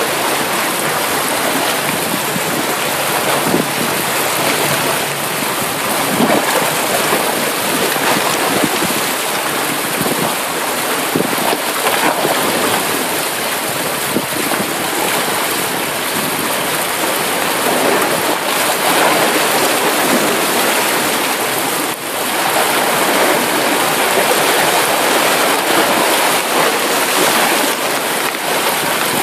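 Steady heavy rain falling: a dense, even hiss of rain with fine patter through it.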